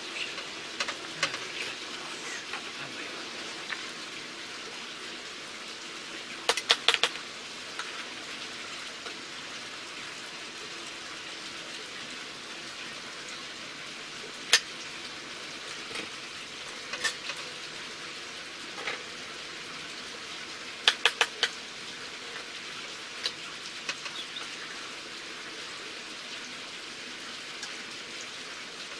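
Steady even hiss, heard as light rain, under scattered sharp clinks of metal utensils against the steel bowl and pot while vegetables are scooped and stuffed. The clinks come in small clusters a few times, with single ones in between.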